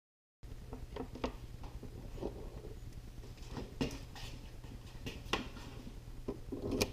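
Light scattered clicks and taps of small parts and wires being handled on a wooden workbench, over a faint steady low hum.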